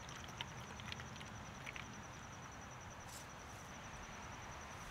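Faint insect trill, a steady, fast-pulsing high note, with a few light clicks in the first couple of seconds and a short hiss about three seconds in.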